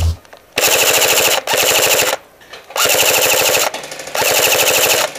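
Airsoft rifle firing four short full-auto bursts close to the microphone, each a rapid, even string of shots lasting under a second.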